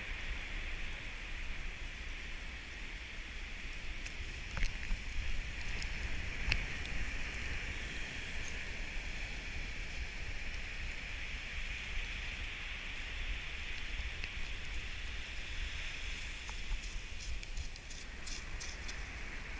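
Steady wash of ocean surf with wind rumbling on the microphone, and a few faint clicks, a cluster of them near the end.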